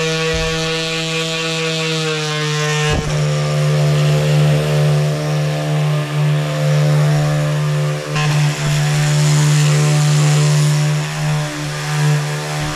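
Random orbital sander running steadily over a plywood subfloor, a constant motor hum with a rough sanding noise on top that grows rougher about three seconds in.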